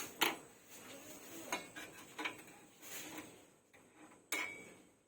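Scattered light knocks and clinks of metal gas-stove parts being handled, one about four seconds in with a brief ring.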